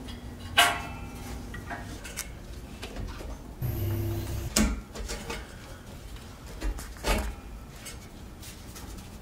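Metal clanks and clinks from hand work on a car's loose exhaust pipe underneath the car. There are a few separate knocks, the loudest about half a second in with a short metallic ring, and a brief low mechanical hum near the middle.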